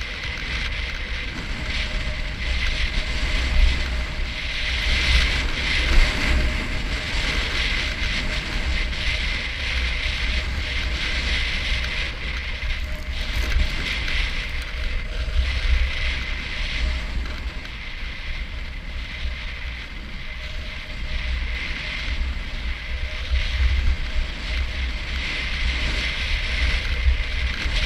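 Snowboard sliding and carving down groomed snow: a scraping hiss that swells and fades through the turns, with wind rumbling on the microphone.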